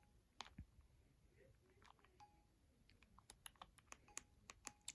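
Faint sharp clicks of buttons being pressed on a handheld digital camcorder as its zoom is worked, coming closer together near the end, with a few brief faint tones among them.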